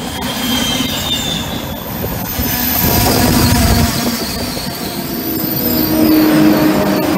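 Frecciarossa ETR500 high-speed trainset running alongside a station platform: steady rolling of wheels on rail with thin, high wheel-squeal tones.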